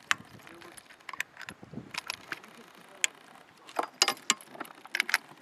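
Scattered sharp clicks and clinks, about a dozen at irregular intervals, the loudest a cluster about four seconds in.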